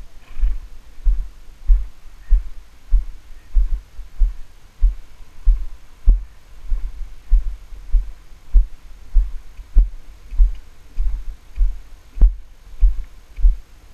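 Muffled, rhythmic low thumps of a ridden horse's strides on arena sand, jolting the helmet-mounted camera in its housing a little under twice a second, with a few sharp clicks from the tack or camera mount.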